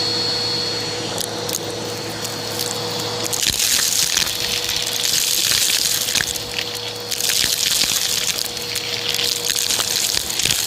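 Vacuum cleaner running with its dust brush attachment. There is a steady motor hum, and from about three and a half seconds in a loud rushing hiss with scattered crackles as the brush is worked over a surface.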